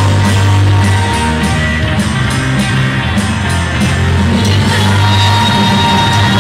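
A rock band playing a song loudly: electric guitar, bass and drums, with a held bass line and frequent cymbal hits.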